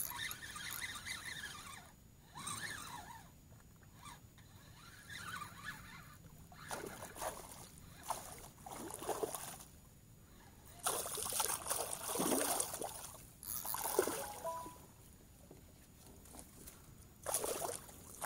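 Water splashing and sloshing in irregular bursts as a hooked northern pike thrashes at the surface beside a kayak, loudest a little past the middle and again near the end.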